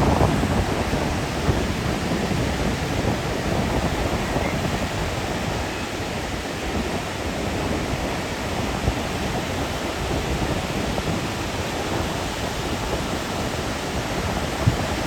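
Ocean surf breaking on a beach, a steady rushing noise, with wind on the microphone.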